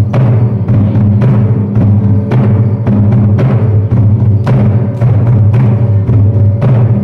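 Drum and gong hung on a wooden frame, beaten for a folk dance in a steady rhythm of roughly two strokes a second, with a deep ringing that carries on between strokes.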